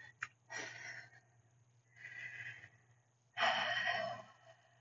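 A woman breathing deeply while holding a stretch: three slow breaths about a second and a half apart, the last the loudest.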